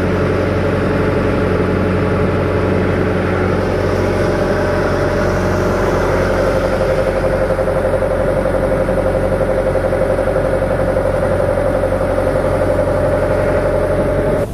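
A wooden fishing boat's inboard engine running steadily at an even speed, with the boat underway.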